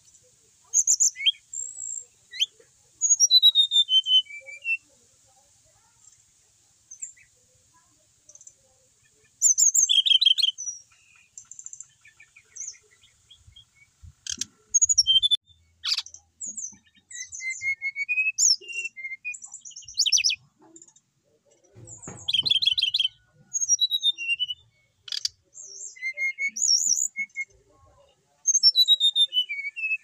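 Brown-chested jungle flycatcher singing: repeated short phrases of quick, varied high notes, several running downward in pitch, with short pauses between, and a few sharp clicks in the middle.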